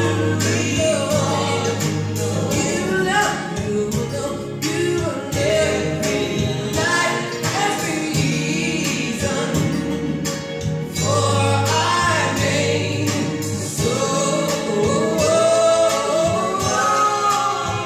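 Vinyl record playing on the turntable: music with several voices singing together over a steady bass line.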